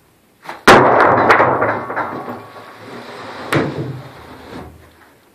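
A large sheet of OSB slapping down flat onto a platform of stacked lumber with a loud smack, followed by a rattling clatter that fades over a second or two. A second knock about three and a half seconds in as the sheet is shifted into place.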